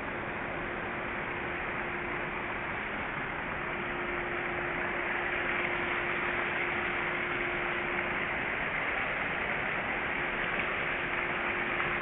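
Steady outdoor background noise, an even hiss with a faint steady hum, growing a little louder about four seconds in.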